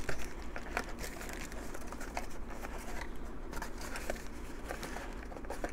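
Faint handling noise of a small cardboard gift box: light rustles and soft scattered taps as it is picked up and slid out of its paper sleeve, over quiet room tone.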